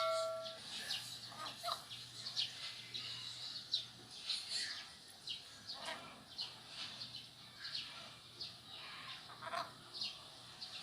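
Chickens clucking and chirping softly in short, scattered calls. A bell's ring fades out at the start.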